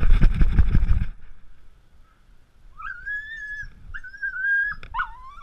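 Rustling and knocking of a handheld or body-worn camera for about the first second, then a dog howling. It gives two long, high, steady notes, and near the end a wavering one.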